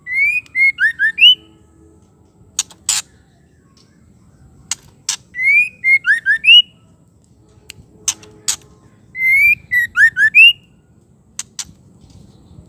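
White-rumped shama calling: a short phrase of quick whistled notes that rise and fall, given three times, with sharp ticking clicks in between.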